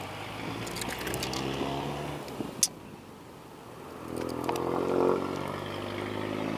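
A road vehicle's engine running nearby, a steady hum that grows louder about four seconds in as it passes. A few sharp metallic clicks come in the first three seconds while a caught snakehead is handled with fish-grip pliers.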